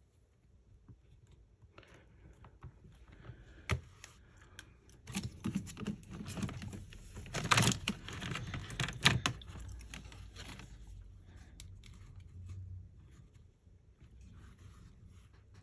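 Small hard clicks and taps with rustling handling noise, as tools and small parts are handled during phone reassembly, busiest in the middle with a few sharper clicks.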